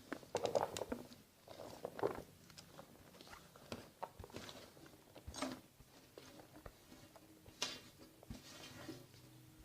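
Chopped vegetables being tipped and worked into a bowl of dry spiced gram flour, heard as a string of irregular soft rustles and light knocks.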